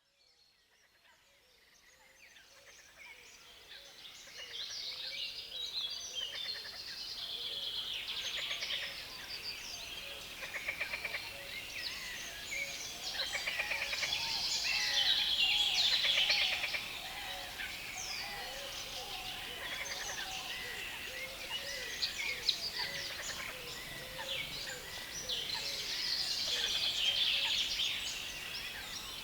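A loud, dense chorus of birds singing in a reed bed, many rapid notes overlapping without a break. It fades in over the first few seconds.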